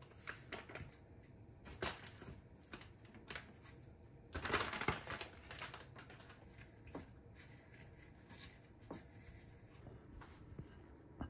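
Light kitchen food-prep handling: scattered clicks and taps of chopsticks and utensils against glass and steel bowls, with a denser, noisier second of handling about halfway through.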